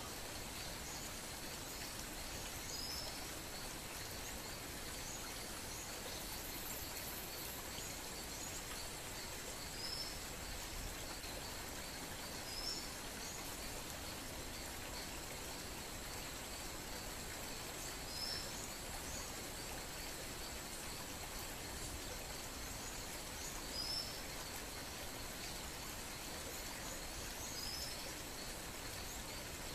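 Faint steady outdoor background noise, with a small bird giving a short high chirp every few seconds.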